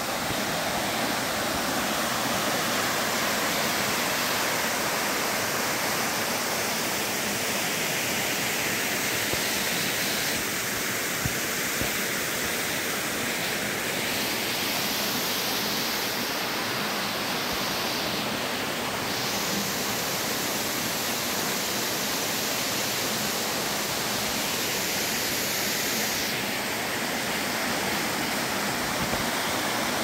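Steady rush of a small waterfall and the shallow stream below it running over flat rocks.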